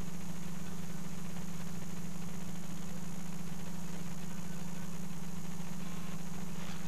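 Steady low hum from running equipment, holding one pitch without change.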